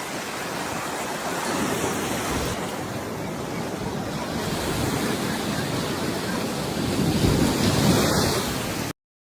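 Steady rushing noise of wind buffeting the microphone outdoors, swelling slightly and then cutting off suddenly near the end.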